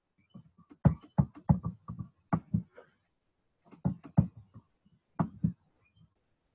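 Faint human voice heard through a video call, broken into short bursts of syllables with hard gaps of silence between them.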